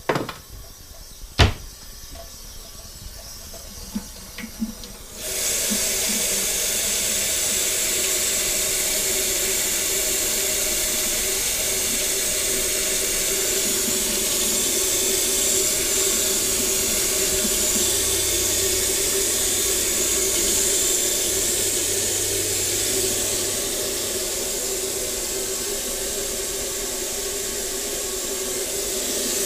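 Kitchen faucet running steadily into a stainless steel sink while dishes are rinsed by hand. It is turned on about five seconds in; before that there is a single sharp knock as a glass is taken from a cupboard.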